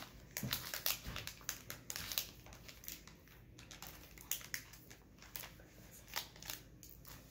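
Foil wrapper of a Pokémon trading card booster pack crinkling in a small child's fingers as she tries to tear it open, a pack that won't open easily. Irregular crinkles, thinning out in the second half.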